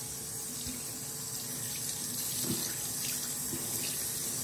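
Bathroom sink faucet running steadily, the stream splashing over hair held under it while a hand works the water through.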